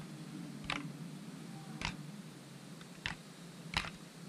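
Cockroach making sharp, dry clicks, about five spaced unevenly, over a faint low hum.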